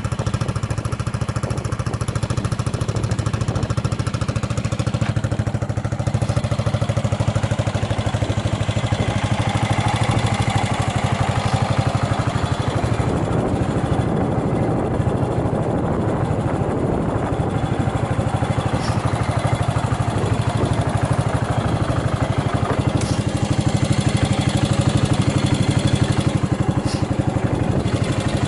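Yamaha SR400's air-cooled single-cylinder four-stroke engine running steadily at idle, with no abnormal noises: the engine sounds healthy.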